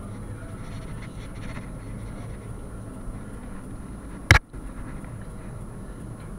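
Steady low rumble with a few faint knocks and scrapes, and one sharp, loud click a little past four seconds in, followed by a brief dropout.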